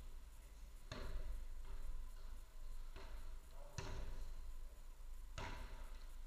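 A footvolley ball struck by players during a rally: four sharp hits, the second one softer, each echoing briefly in a large hall.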